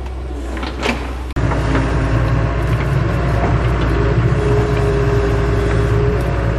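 Doosan DX140W wheeled excavator's diesel engine running under load as the boom and bucket work. There is a brief squeal just under a second in; the engine sound then cuts and comes back louder, and a steady whine joins it for a second or so in the middle.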